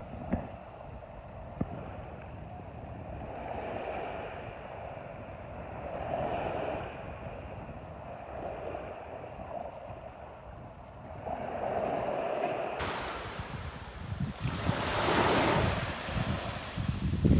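Waves washing onto a beach, the hiss of the surf swelling and fading every few seconds. About two-thirds of the way through, a larger wash begins suddenly, a louder, brighter hiss that peaks near the end.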